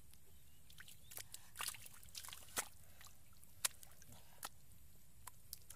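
Gloved hands digging and sloshing through wet mud, giving irregular short squelches, splats and drips.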